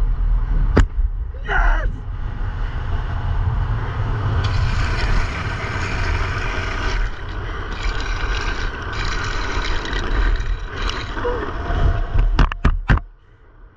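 Wind buffeting a helmet-mounted camera and skateboard wheels rolling on asphalt at high speed on a downhill skateboard run, a steady rush with heavy low rumble. A cluster of sharp knocks comes near the end, and then the noise drops off suddenly.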